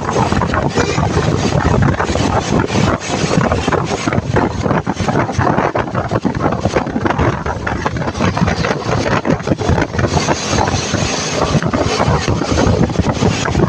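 Heavy wind buffeting the microphone over the rushing noise of a vehicle moving at road speed, with no horn to be made out.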